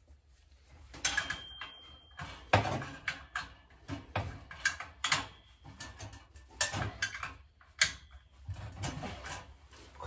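Irregular metallic clicks, knocks and scrapes of hand tools and fittings as a gas boiler's pilot burner assembly is fastened back in place, with a brief high squeak about a second in.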